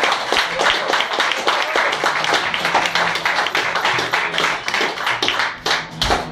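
Audience clapping, a dense run of hand-claps with a few voices mixed in.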